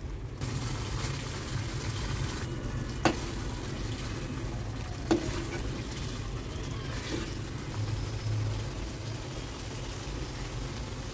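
A steel ladle stirs thick, simmering chicken gravy in a non-stick kadai, over a steady low hum. The ladle clinks sharply against the pan twice, about three and five seconds in.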